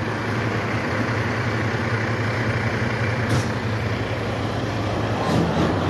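Heavy tow truck's diesel engine running steadily nearby, a constant low hum.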